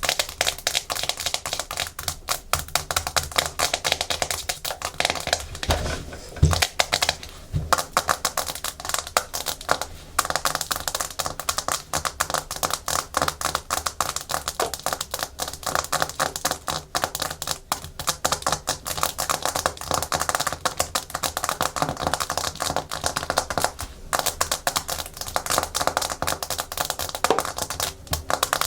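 Natural fingernails tapping fast and hard on a hard plastic surface: a dense run of rapid clicks, with a few heavier knocks a third of the way through.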